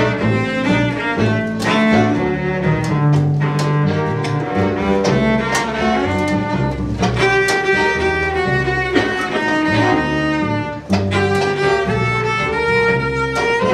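String quartet of violin, viola, cello and double bass playing together, held notes over a moving low line. The music drops away for a moment about eleven seconds in, then carries on.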